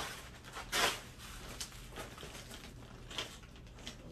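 A shoulder tote bag being handled and opened: short rustling, clicking handling sounds, the loudest about a second in, with a few fainter ones later.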